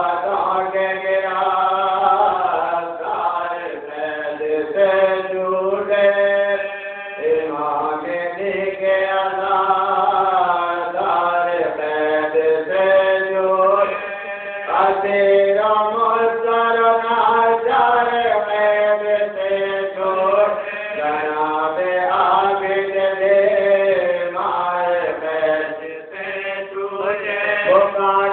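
Unaccompanied vocal chanting: long, held melodic lines that glide up and down in pitch, broken by short pauses between phrases.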